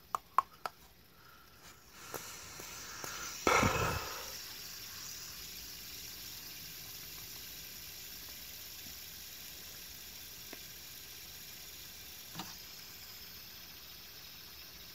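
Three sharp clicks in quick succession, then a loud brief rustling bump about three and a half seconds in, over a steady faint hiss that sets in about two seconds in; a couple of small ticks come later.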